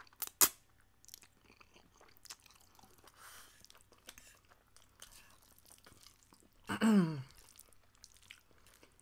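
Close-up mouth sounds of a person eating spaghetti. A sharp slurp as noodles are sucked in near the start, then wet chewing with small lip and mouth clicks, and a short voiced hum falling in pitch about seven seconds in.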